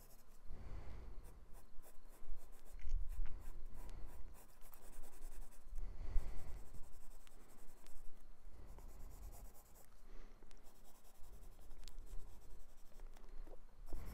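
Graphite pencil shading on sketchbook paper: an irregular back-and-forth scratching of short strokes, with occasional low bumps.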